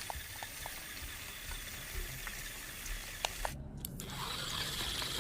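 Small electric gear motor running, with scattered light clicks; about three and a half seconds in the sound drops out for a moment, then returns with a stronger high hiss.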